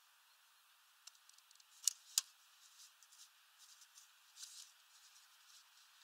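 Rock pigeons pecking and shuffling at a seed feeder: two sharp clicks close together about two seconds in, with scattered softer ticks and scratches around them over a faint steady hiss.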